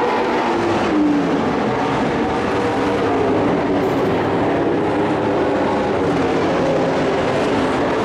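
Several dirt-track race trucks running together around the oval, their engines a steady, loud mix of overlapping tones that shift a little in pitch as the pack goes by.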